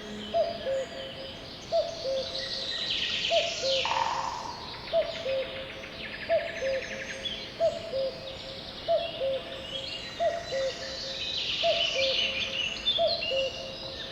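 Birds calling: a two-note call, a higher note followed by a lower, falling one, repeats a little more than once a second over a chorus of higher chirps and trills.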